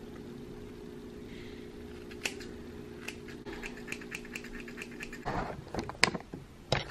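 Hair-cutting scissors snipping through a lock of wet hair: a single click, then a run of quick snips a little past the middle, over a steady low hum. Near the end the hum stops and there is louder rustling from hair being handled.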